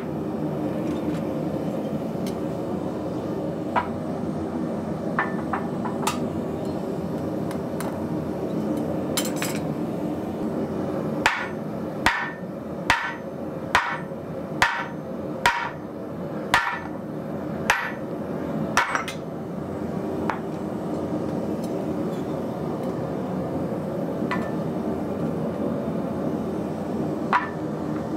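Hand hammer blows driving a steel drift into red-hot heavy-wall square steel tubing on a swage block. There are about nine sharp strikes, roughly one a second, in the middle, with a few lighter clinks of steel before and after. A steady humming drone runs underneath throughout.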